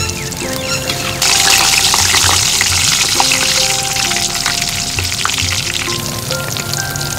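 Eggplant slices sizzling as they deep-fry in hot oil in an iron pot. The sizzle jumps up loud about a second in, over background music.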